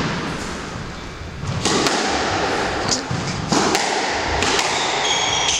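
Squash rally: the rubber ball cracking off rackets and thudding against the court walls, a series of sharp knocks a fraction of a second to a second apart starting about a second and a half in, with short squeaks from shoes on the wooden floor near the end.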